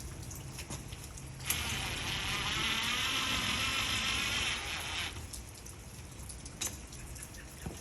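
A small handheld power tool's motor buzzing steadily for about three and a half seconds, starting about a second and a half in and stopping suddenly, with a few light clicks and knocks of work around it.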